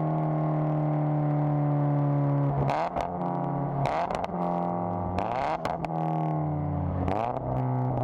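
Toyota GT86's flat-four engine through a catless Fi valvetronic exhaust with the valve open, filmed right at the tailpipe while driving. The exhaust note is held steady at first, then about two and a half seconds in it falls and rises in pitch several times, with short rough noisy bursts at each change.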